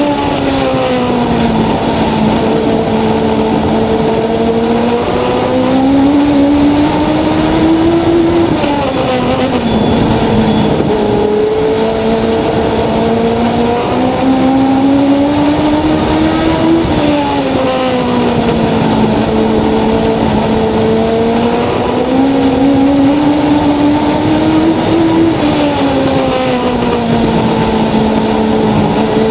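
Legend race car's Yamaha four-cylinder motorcycle engine at racing speed, heard on board. Its note climbs steadily along each straight, then drops sharply as the driver lifts for the turn and holds low through the corner, three times over, once a lap.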